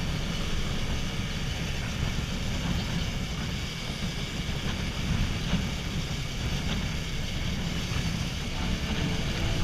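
Yamaha Fazer 250 motorcycle riding along, its single-cylinder engine running under a steady rumble of wind on the helmet-mounted microphone.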